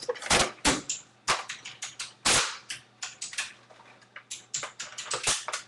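Irregular sharp plastic clicks and knocks from an airsoft gun being handled after loading a BB. The loudest knocks come about a third of a second in and near two and a half seconds in, followed by a run of lighter, quicker ticks near the end.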